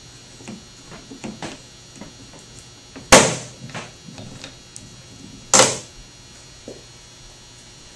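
Two sharp pops from the dented steel door panel of a 2002 Volkswagen Beetle as a glue-tab paintless dent puller is tightened, the metal springing back as the dent is pulled out. Faint clicks come from the puller before and between the pops.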